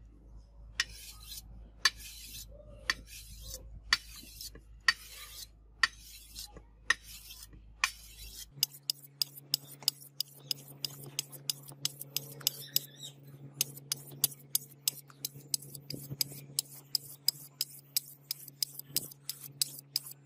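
A sharpening stone scraped in repeated strokes along the edge of a steel sword blade. The strokes come about two a second, then turn quicker and shorter, about three or four a second, partway through.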